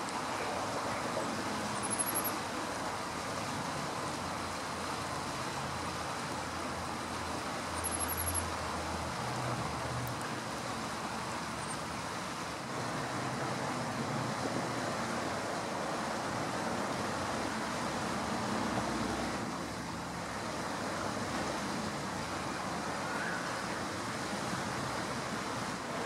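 Steady hum of distant road traffic, an even wash of noise with no changes. Two very short, faint, high-pitched chirps come through about 2 seconds and 8 seconds in.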